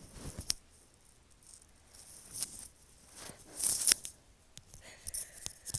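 A person's sharp, breathy sniffs and catching in-breaths, in about four short hissing bursts with small clicks, the loudest about two-thirds through: the build-up to a sneeze.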